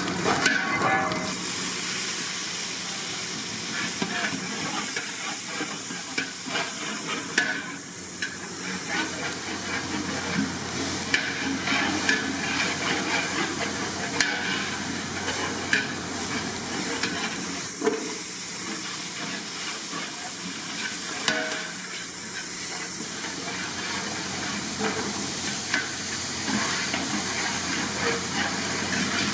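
Onions and diced vegetables sizzling in hot oil in a large metal pot, stirred with a long metal ladle that now and then knocks and scrapes against the pot, over a steady hiss.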